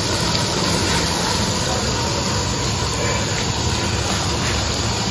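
Steady, even rushing hiss of a portable gas-cylinder burner's flame heating a pot of chicken and taro curry.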